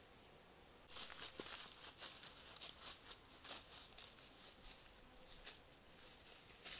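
A deer's hooves stepping through dry leaf litter: irregular crunching and rustling footsteps that start about a second in.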